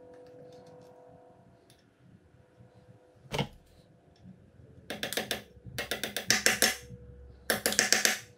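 Metal pin being worked into place with a straight pick on a 1979 Johnson 15 hp outboard: one sharp click about three seconds in, then three bursts of rapid metallic clicking, the loudest sounds here. A faint steady hum sits under the first couple of seconds.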